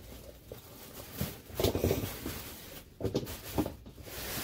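Handling noise as shoes are rummaged for: rustling and soft knocks in two bursts, the first about a second in, the second about three seconds in.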